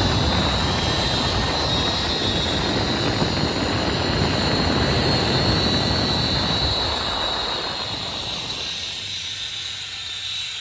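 Zip line trolley running along a steel cable: a steady high whine over a loud rush of wind on the microphone. The rush fades after about seven seconds while the whine carries on.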